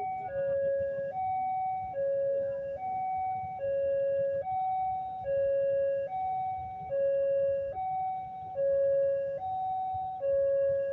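Railway level-crossing warning alarm sounding from the loudspeaker on the crossing signal: an electronic two-tone alarm switching between a higher and a lower tone, each held about a second, over and over. It warns that a train is approaching the crossing.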